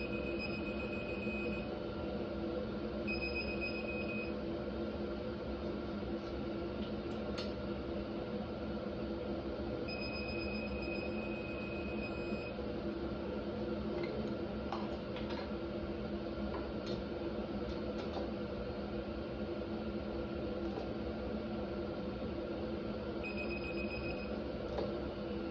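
Electronic torque wrench beeping a steady high tone four times, each one to two and a half seconds long, as each cylinder head fastener is brought to the 20 foot-pound step. A few light clicks come in the middle, over a steady hum.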